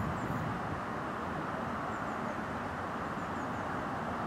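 Pair of Class 153 diesel railcars approaching at a distance: a steady, even rumble of the engines and wheels on the track.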